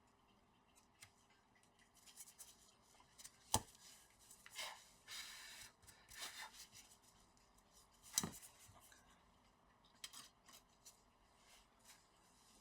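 Quiet workbench handling noises: light scraping and rubbing, with two sharp taps, about four and eight seconds in.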